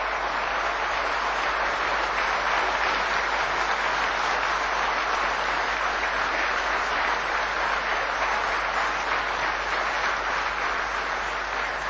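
Audience applauding, a long steady round of clapping.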